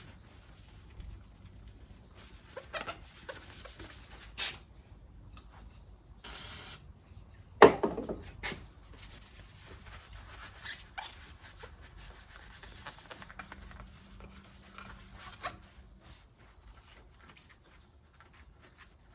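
Rubbing and scraping of hand work on motorcycle fork parts, with scattered light clicks and one sharp knock a little over a third of the way in.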